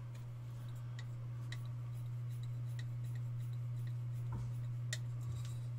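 Light clicks and ticks, about two a second, of a hex screwdriver working M3 cap screws into a carbon-fibre quadcopter frame, over a steady low hum.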